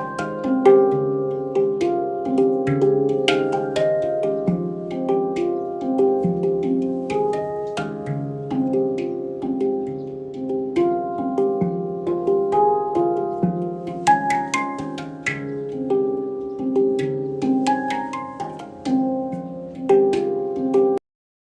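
Handpan being played: a steady flow of hand-struck notes ringing and overlapping in a calm melodic pattern, each with bright overtones. The sound cuts off suddenly near the end.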